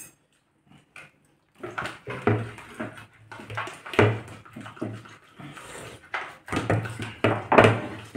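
Close-up sounds of a man eating: chewing and smacking mixed with low murmurs, in irregular bursts that start about a second and a half in, after near silence.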